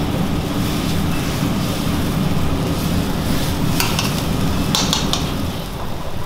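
Steady low rumble of a gas stove burner under a pan of simmering sauce, with a metal ladle stirring and clinking against the pan a few times around four to five seconds in.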